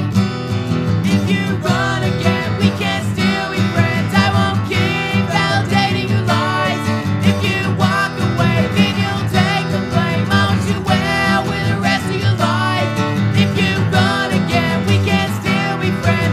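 Recorded emo/post-hardcore band music: an instrumental passage led by guitars over a steady drum beat, with no vocals.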